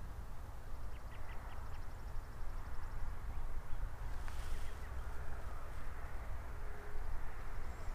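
Outdoor pond-bank ambience with a steady low rumble, with a few faint high bird chirps about a second in and a short sharp sound about four seconds in.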